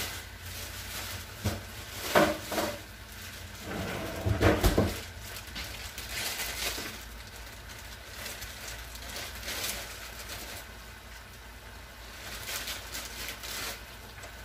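Kitchen handling noises: a few knocks and clatters as items are moved and set down, the loudest about two seconds and four and a half seconds in, with lighter rustling and clinks after.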